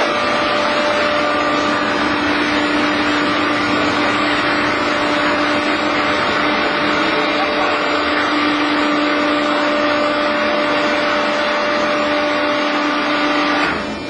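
Horizontal baler running: its electric motor and hydraulic pump make a loud, steady whine that holds one pitch and cuts off suddenly near the end.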